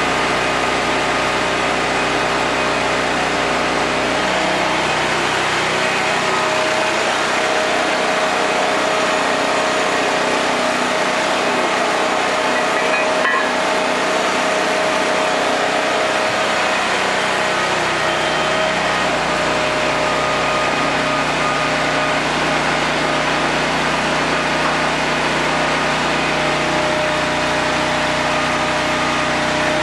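Small gasoline engine driving the hydraulic pump of a homemade press brake, running steadily.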